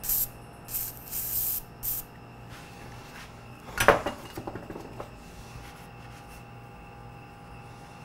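Four short hissing sprays in the first two seconds. About four seconds in comes a loud squeak and crackle as the rubber grip is twisted onto the handlebar.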